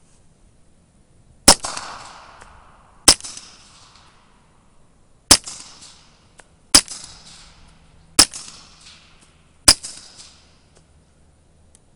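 Suppressed Glock 19 9mm pistol, fitted with a Thompson Machine Isis 9mm suppressor and firing 147-grain subsonic rounds, fires six shots about one to two seconds apart. Each shot is a sharp report that trails off over about a second.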